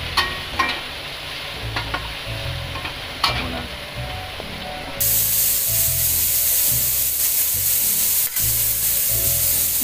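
A metal spatula scrapes and clinks against a steel wok as carrots and bell pepper are stirred in hot oil. About five seconds in, a loud, steady sizzle of the vegetables frying cuts in suddenly and holds.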